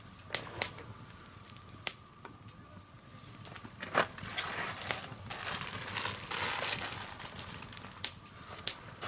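Swedish torch log fire crackling with scattered sharp pops. There is a stretch of crinkling and rustling from about four to seven seconds in.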